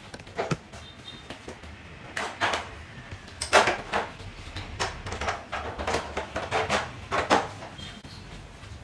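A string of irregular sharp clicks and knocks of hard objects being handled, louder and closer together in the middle.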